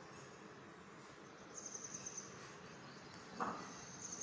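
Faint high-pitched chirping in short pulsed trills from an insect, once about one and a half seconds in and again near the end, over a quiet room hiss. A brief soft knock about three and a half seconds in.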